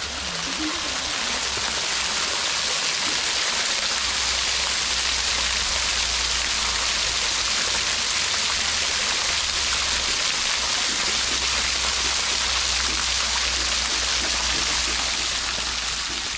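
Steady rushing of flowing water, as from a stream or small cascade.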